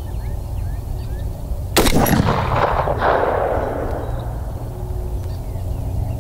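A single shot from a 350 Legend AR-style rifle with a muzzle brake, a little under two seconds in. Its echo rolls away over the next two seconds.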